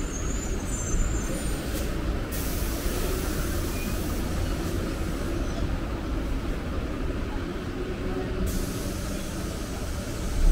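Steady vehicle rumble with a high hiss that comes in about two seconds in and stops about eight and a half seconds in.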